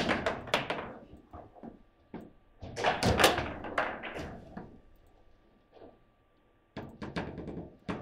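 Table football being played: sharp knocks and clacks of the ball struck by the figures and of the rods being worked, coming in flurries, the busiest about three seconds in, with a near-quiet pause around six seconds in.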